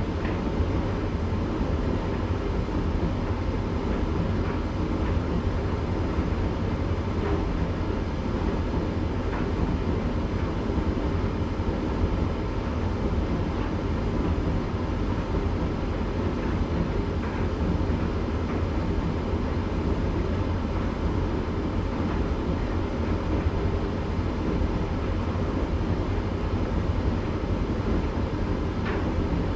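Candy GrandO tumble dryer running steadily in the cool-down phase of its cycle: a constant low rumble of the turning drum and fan, with towels tumbling and a few faint ticks.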